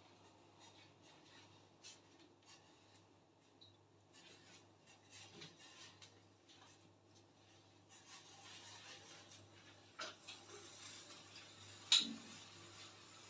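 Faint rubbing and rustling with scattered small clicks over a steady low hum, and a sharp click near the end.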